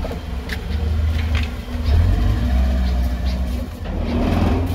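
Small Suzuki hatchback's engine running at low revs with a steady low rumble as the car moves slowly out through a gate, with a few light knocks in the first couple of seconds.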